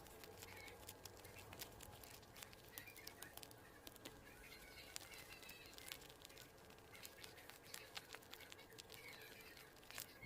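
Faint, scattered small clicks and rustles from handling paper.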